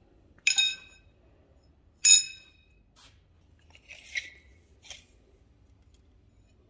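A steel square bar set down on an anvil: two sharp metallic clanks about half a second and two seconds in, each ringing briefly. These are followed by a few softer taps and scrapes as the bar is handled.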